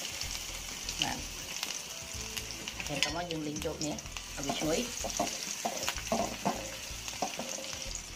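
Chopped garlic and red chilies sizzling in hot oil in a metal wok, a steady sizzle, with a metal spatula scraping and clicking against the pan as they are stirred. These are the aromatics being fried until fragrant at the start of the stir-fry.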